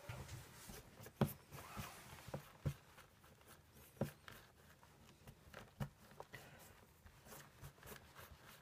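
Faint rustling of fingers sifting through damp shredded worm bedding, with scattered light taps and clicks.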